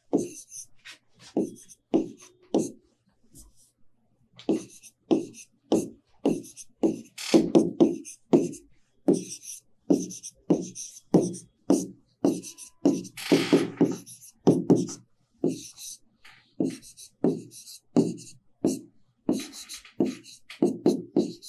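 Chalk writing on a blackboard: a rapid run of short chalk taps and scratchy strokes, about one and a half to two a second, each with a dull knock from the board.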